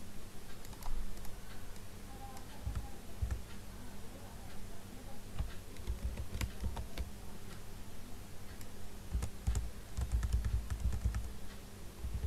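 Typing on a computer keyboard: irregular bursts of key clicks and soft thuds, over a faint steady low hum.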